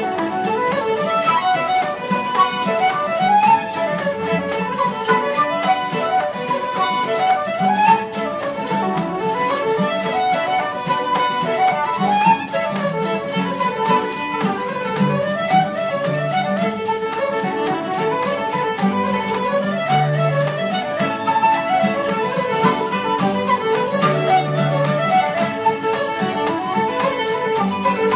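Irish traditional session music: fiddles leading a fast tune in quick runs of notes, with guitar chords underneath.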